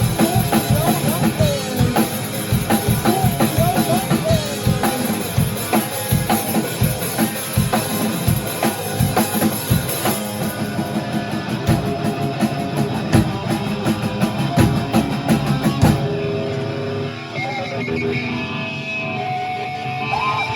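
Rock band playing, with drum kit and guitar. About sixteen seconds in the drums stop and held guitar notes ring on.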